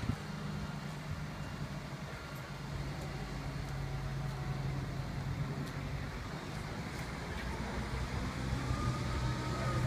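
Heavy crane engine running steadily at a low pitch, getting slightly louder toward the end, with a faint higher whine joining in near the end.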